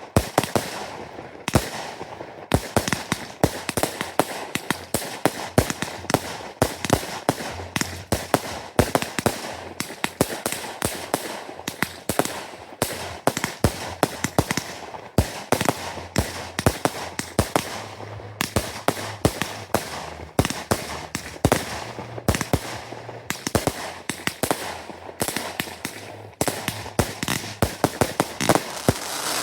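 Fireworks display going off: a dense run of sharp bangs and pops, several a second, with a continuous hiss between them.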